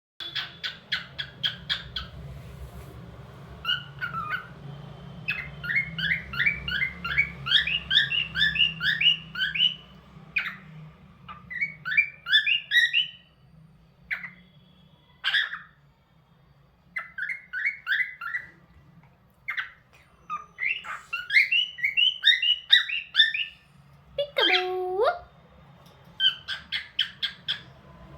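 Cockatiel chirping in quick runs of repeated high notes, with short pauses between the runs. A lower, gliding call sounds briefly about 25 seconds in.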